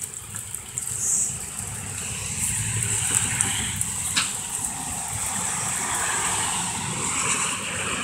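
Hard rain falling, a steady rushing hiss with low rumbling handling noise on the phone's microphone and a single click about four seconds in.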